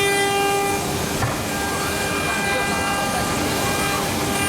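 Four-spindle CNC wood carving router running, its spindles giving a steady whine made of several tones over the noise of cutting.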